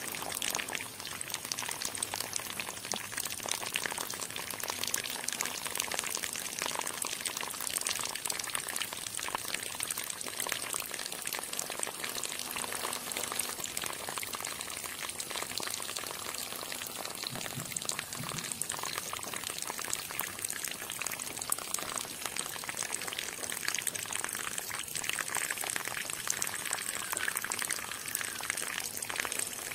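A thin stream of water pouring steadily from a small clear plastic tube and splashing onto wet sand.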